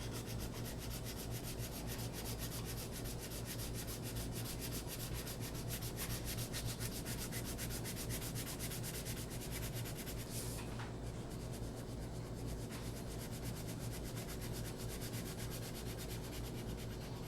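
Crayon colouring on paper in quick up-and-down strokes: a steady, scratchy rubbing.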